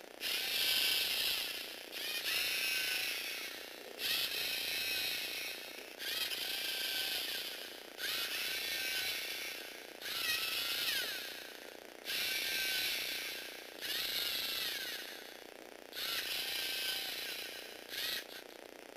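Lego Technic plastic gear train, driven by a Lego motor, whirring and clicking in repeated bursts about every two seconds. Each burst starts suddenly and then fades.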